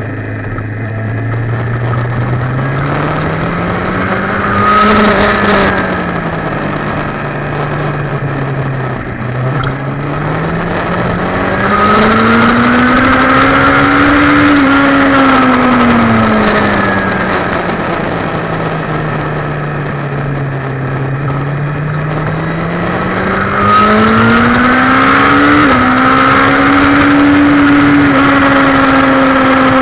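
Sport motorcycle engine heard from on board at track pace, its pitch climbing and falling over several seconds at a time as the bike accelerates and slows. It climbs three times, the last time near the end, where it holds at a high note. Throughout there is a steady rush of wind and road noise.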